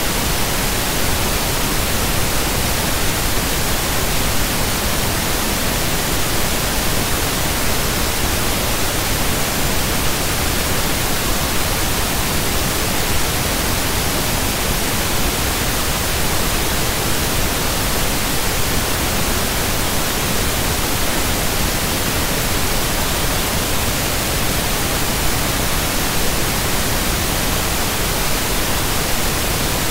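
Steady, loud static hiss spread evenly from low to high pitches, unchanging throughout, with no other sound in it.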